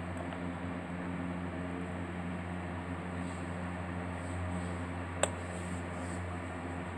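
Steady low hum of a room fan or appliance, with a single sharp click about five seconds in.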